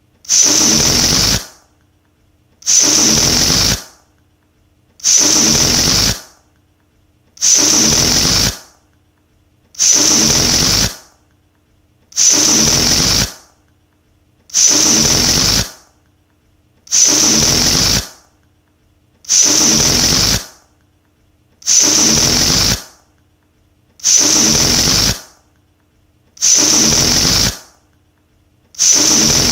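Rubber balloon deflating, air rushing out through its neck with a rasping, buzzing flutter. The same burst of about a second, fading at its end, repeats roughly every two and a half seconds.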